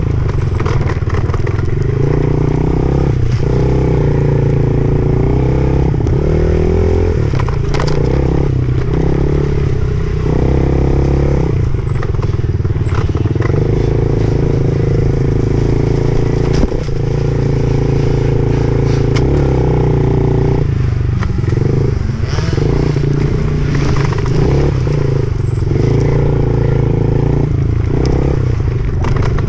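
Dirt bike engine running hard, its pitch climbing and dropping back again and again with throttle and gear changes, heard from a helmet-mounted camera.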